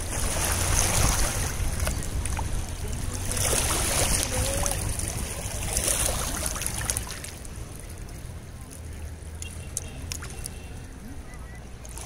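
Ganges river water running and lapping over the rounded stones at the shore, a steady rushing that is louder for the first half and then eases.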